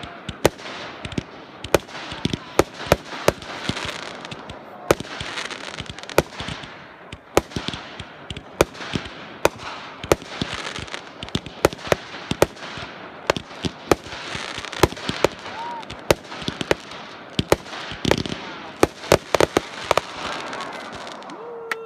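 Multi-shot consumer fireworks cake firing: a continuous hiss of rising shells broken by sharp bangs a few times a second. It stops abruptly near the end.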